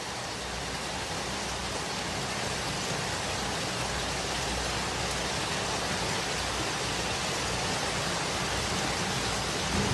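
Heavy rain falling, a steady even hiss with no break.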